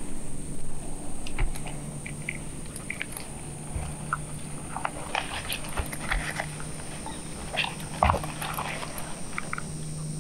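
Feral hogs grunting in short, scattered calls.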